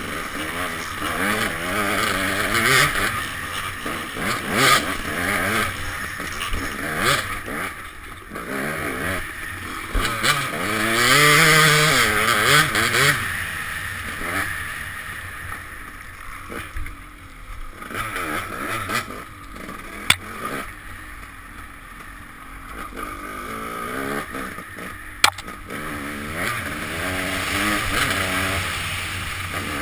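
Dirt bike engine revving up and falling back over and over as it is ridden hard along a trail, heard from a helmet-mounted camera with a rush of wind noise. Two sharp knocks come in the later part.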